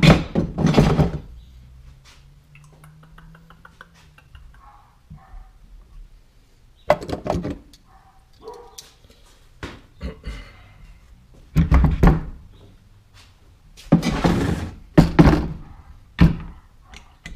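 A rifle and tools being handled on a wooden workbench: several loud thunks and knocks spread through, with quieter handling clicks between.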